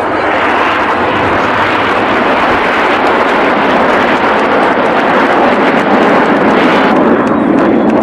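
A formation of RAF Red Arrows BAE Hawk T1 jets flying past overhead: a loud, steady jet roar that turns deeper about seven seconds in as the jets move away.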